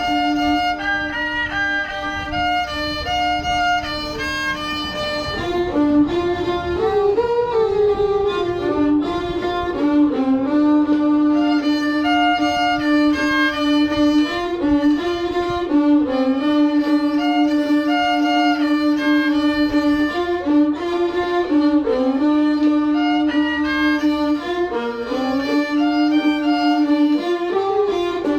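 Instrumental music: a melody moving in steps over a long-held lower note, with a bowed, fiddle-like sound.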